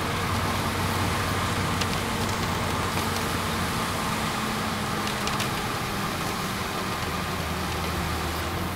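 Steady road noise from inside a moving car: a low engine hum under the wash of tyres on wet pavement.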